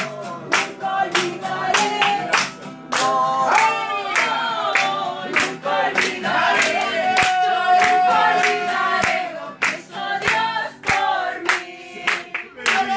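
Congregation singing a worship song and clapping along in a steady beat, led by a singer with an acoustic guitar.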